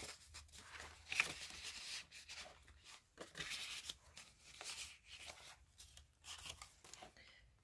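Faint, uneven rustling and sliding of paper and card as the pages and tucked-in cards of a handmade junk journal are handled and turned.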